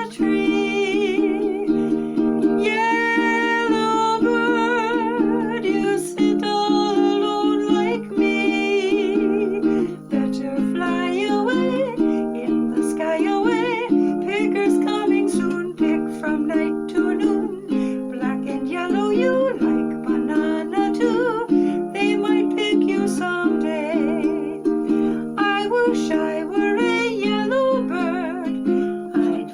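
Music: a wavering, vibrato-laden melody line over steady plucked-string chords.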